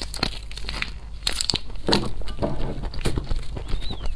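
Close-miked mouth sounds of chewing and swallowing jelly squeezed from a plastic stick sachet, with crinkling of the sachet and scattered sharp clicks.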